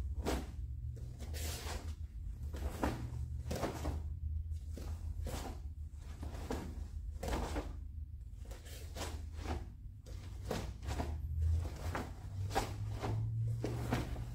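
Sharp swishes and snaps of a taekwondo uniform, with bare feet stepping and stamping on foam mats, as a form's blocks, punches and kicks are performed. They come roughly once a second, over a low steady hum.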